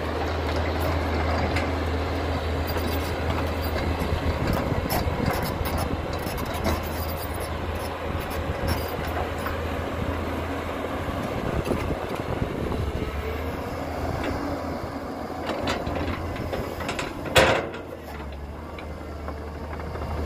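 Caterpillar 320BL excavator's diesel engine running steadily with a low drone, with scattered clanks and knocks and one sharp bang about seventeen seconds in.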